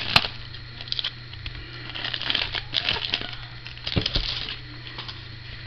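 Foil wrapper of a football card pack crinkling in irregular bursts as it is handled and the cards are pulled out, dying down near the end.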